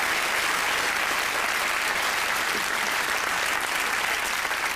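Studio audience applauding steadily, tailing off slightly near the end.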